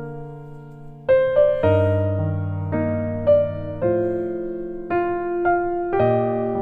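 Background keyboard music: a slow melody of single struck notes, about one or two a second, over held low chords.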